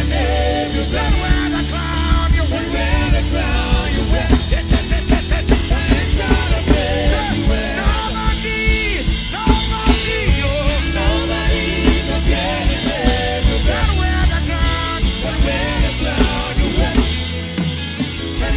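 Live worship band music driven by a DW drum kit played hard with sticks, with frequent sharp drum and cymbal hits over a heavy bass line. Voices are singing along.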